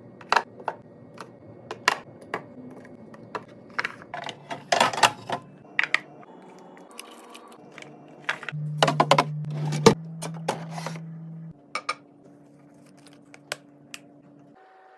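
Irregular clicks, taps and clatters of plastic containers and packaged items being handled and set down while restocking a fridge and pantry, with a denser clatter twice. A steady low hum runs underneath and shifts pitch abruptly between clips.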